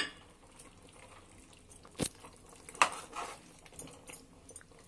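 Steel ladle stirring spiced beef in an open aluminium pressure cooker. It clinks sharply against the pot at the start, about two seconds in and again just under a second later, with quiet stirring between.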